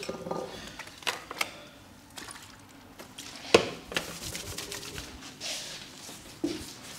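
Hands working a client's head and neck in a barber's massage: a few irregular sharp smacks and clicks, the loudest about three and a half seconds in.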